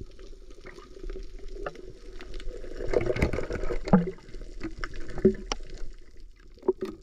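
Muffled water gurgling and sloshing around a camera held under the surface, with scattered knocks and clicks.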